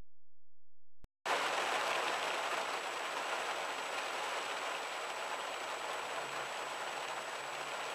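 Heavy, torrential rain hammering on a car's roof and windscreen, heard from inside the car as a dense, steady hiss. It starts abruptly about a second in.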